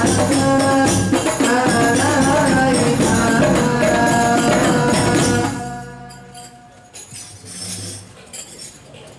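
Rebana frame-drum ensemble playing with group singing, ending about five and a half seconds in; after that only faint voices and a few scattered taps remain.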